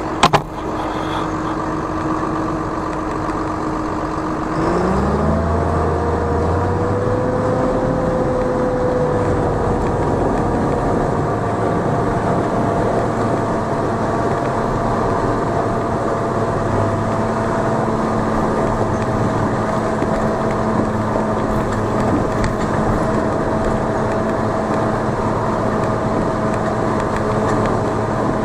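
Farm tractor engine running under the fender. It revs up about four to five seconds in and then holds steady at the higher speed as it pulls. There is a brief sharp knock right at the start.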